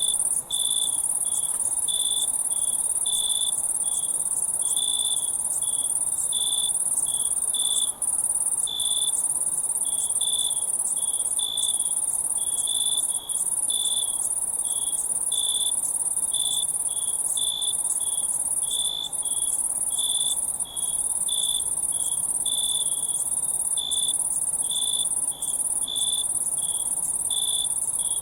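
Crickets chirping at night: short chirps repeating about twice a second over a continuous high-pitched insect trill.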